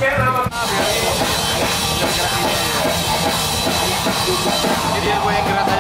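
Loud rock music with fast, dense drumming, which cuts in abruptly about half a second in, replacing a softer passage of sustained notes.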